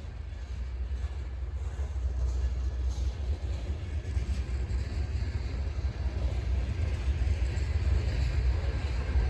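Train approaching: a low rumble that grows steadily louder.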